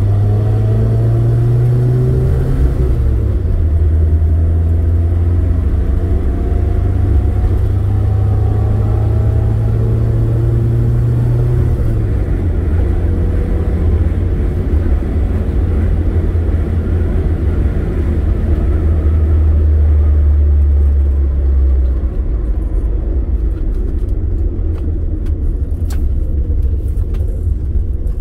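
Car engine and road noise heard from inside the cabin while driving. The engine note climbs as the car accelerates and drops back about three and twelve seconds in, as at gear changes. It then runs steady and eases off near the end, with a few faint clicks.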